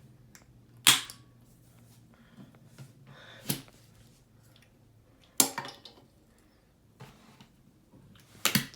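Sharp clicks at a GFCI outlet as its test and reset buttons are pressed, four times a few seconds apart.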